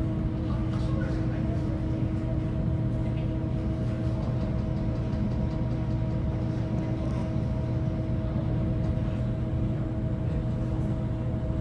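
Steady drone of a large car ferry under way, a low rumble with several unchanging hum tones from the ship's machinery, mixed with wind blowing on the microphone.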